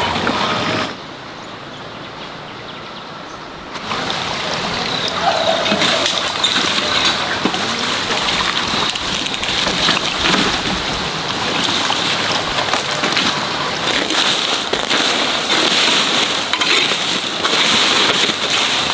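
Water running and splashing, with many small irregular clicks and knocks; it is quieter for a few seconds near the start.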